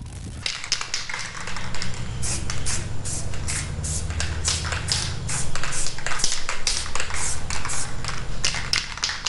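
Aerosol spray can in use: a quick, even run of short hissing bursts, about three a second, over a steady low hum.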